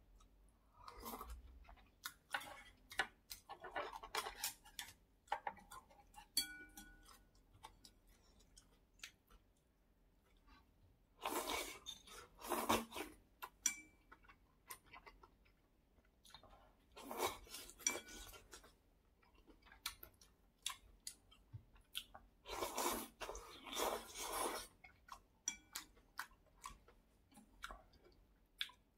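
Close-miked eating of malatang: chewing and noodle slurping, coming in four louder spells, with light clicks of wooden chopsticks against a ceramic bowl in between.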